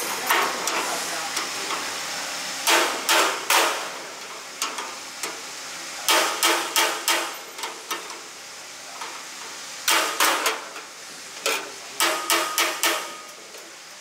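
Wrench working a nut on the corn thresher's roller bracket: sharp metallic clicks in groups of three or four, repeated four times.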